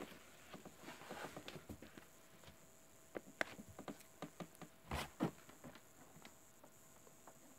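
Faint scattered clicks and rustles, with a few sharper ticks about three and a half and five seconds in.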